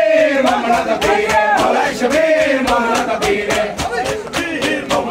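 A group of men chanting a noha in unison while beating their chests in matam: sharp hand-on-chest slaps in a steady rhythm under the singing.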